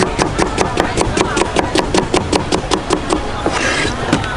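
Cleaver chopping a young mango into thin slices on a wooden cutting board, even knocks about five a second, stopping about three seconds in; then a short scrape as the slices are swept off the board.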